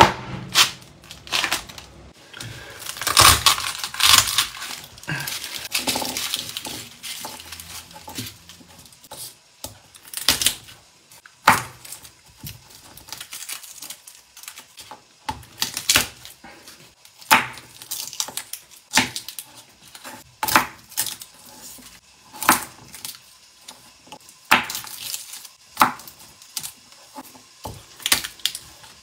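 Kitchen knife knocking on a bamboo cutting board as garlic cloves are cut and crushed under the blade: irregular sharp knocks, about one every second or two. Crinkling a few seconds in.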